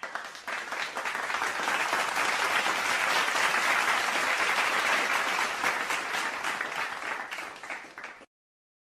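Crowd applauding: many hands clapping in a dense patter that builds over the first second, holds, then dies away and stops about eight seconds in.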